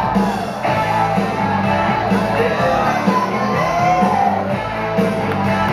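Loud rock music with singing and a steady beat, mixed with some shouting.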